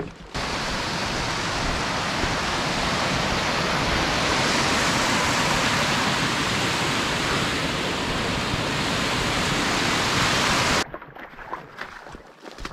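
Rushing white water of a small cascading forest creek, a steady hiss that starts suddenly just after the start and cuts off abruptly near the end.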